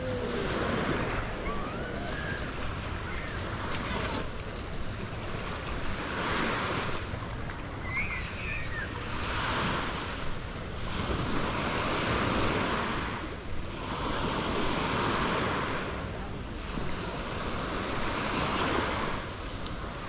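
Small waves washing onto a sandy shore, the hiss swelling and fading about every second and a half, with wind buffeting the microphone.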